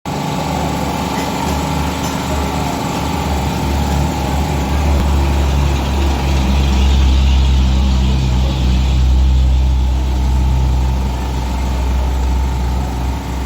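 A steady low engine hum, like an idling motor, growing a little louder in the middle.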